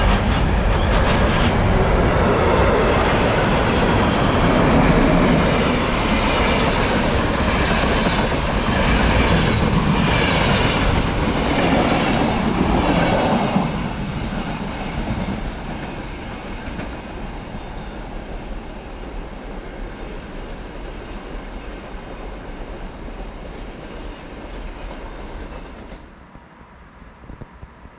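Freight train passing, its wheels clattering over the rail joints in a repeating rhythm. About halfway through the sound fades away as the train moves off.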